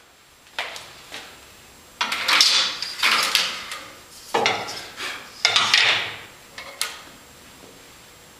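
Steel framing square and long steel rule handled on a wooden propeller blank: a couple of light clacks as they are set down, then several scraping slides of metal across the wood, and a last clack near the end.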